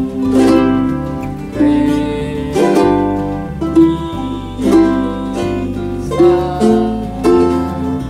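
Ukulele strummed by hand, chords ringing with a fresh strum roughly every second, over a low bass line.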